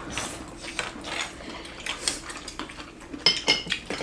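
Chopsticks and metal spoons clinking and scraping against bowls and a hotpot pan during a meal, in scattered light clicks with a few brief ringing clinks near the end.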